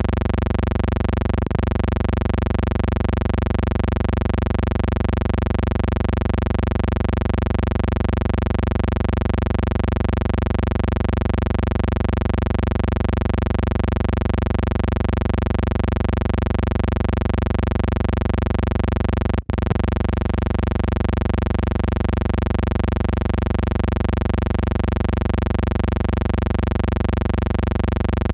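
A steady, unchanging hum with many even overtones over a low rumble, the kind left on the soundtrack of a silent film transfer. It cuts out for an instant twice, about a second and a half in and again near the twenty-second mark.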